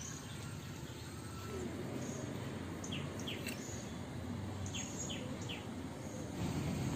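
Steady low outdoor rumble with two quick runs of short, high, falling bird chirps around the middle; the rumble gets louder near the end.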